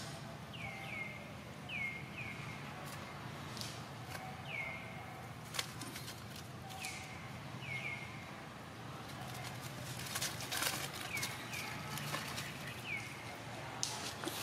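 Baby macaque crying: a dozen or so short, high calls at irregular intervals, each dropping quickly in pitch. Scuffling and rustling come around two-thirds of the way through and again near the end.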